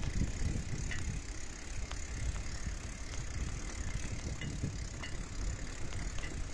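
Bicycle rolling over a bumpy dirt track: a steady low rumble with occasional light rattles and clicks from the bike.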